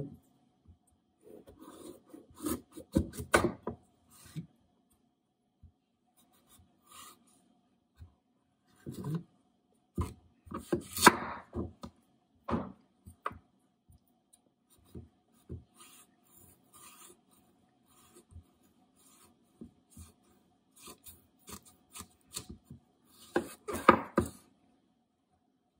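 Chef's knife cutting through raw acorn squash on a wooden cutting board: crunching through the hard rind and knocking on the board in three bouts of cuts, with quieter handling between.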